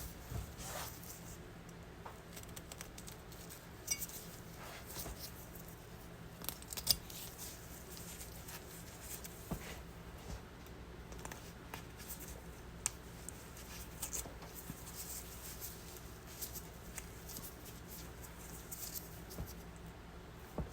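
A knife cutting and scraping through an otter's hide while it is skinned, with the skin tearing as it is peeled: irregular soft scratching strokes and faint clicks.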